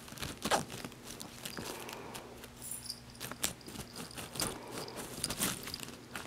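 A tabby cat pawing at and biting a large feather toy on carpet: irregular rustling, scratching and crackling clicks.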